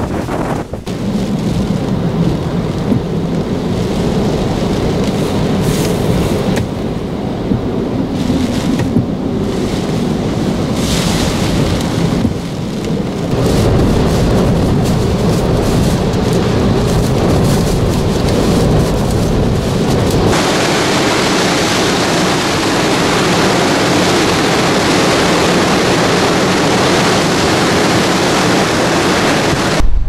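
Typhoon wind and heavy rain, with gusts buffeting the microphone. The noise changes abruptly twice as the shots change, and in the middle stretch it is heard from inside a car driving through the storm.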